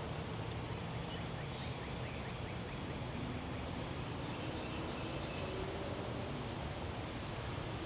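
Steady outdoor background noise with faint, scattered high bird chirps.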